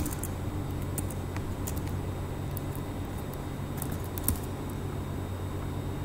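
Scattered computer keyboard key clicks, a few at a time, over a steady low hum.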